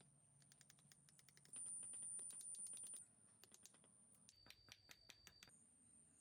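Faint, fast light clicking and tapping, like small hard parts being handled or worked, over a steady high-pitched whine that grows louder about a second and a half in and drops back about a second and a half later.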